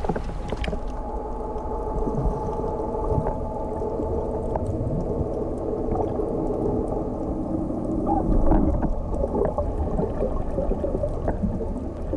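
Muffled underwater sound as a freediver goes below the surface: about a second in the bright surface sound cuts off, leaving a low rush of water with a few steady humming tones and scattered small clicks. It gets louder and more broken after about eight seconds, when exhaled bubbles rise past.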